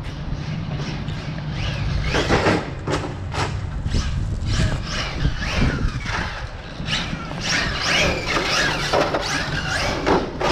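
A 6S electric RC car being driven hard: its motor whines up and down in repeated bursts of throttle, with squeals from the tyres, busiest in the second half. Wind rumbles on the microphone throughout.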